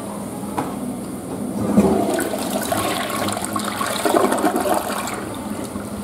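Western-style flush toilet flushing: a click, then water rushing and swirling into the bowl and draining. The flush swells about two seconds in and eases off near the end.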